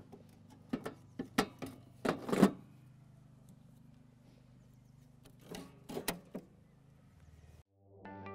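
Allett 10-blade cutting cylinder cartridge being slotted into an Allett Stirling cylinder mower: two clusters of metal clicks and clunks, one about a second in and one around six seconds. The loudest knock comes at the end of the first cluster. Guitar music starts just before the end.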